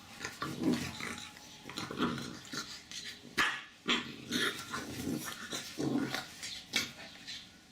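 A dog making a series of short low vocal sounds, with two sharp knocks about midway.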